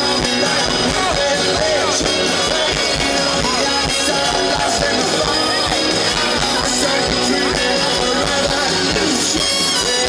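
Rock music with guitars and a singing voice, playing steadily.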